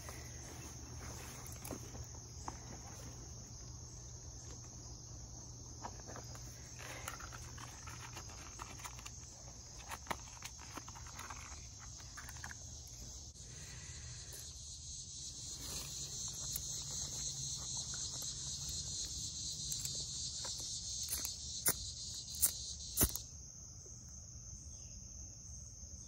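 Crickets trilling in a steady chorus over a low background rumble, with scattered faint rustles and clicks. Near the end come a few sharp clicks, and the trilling drops away sharply.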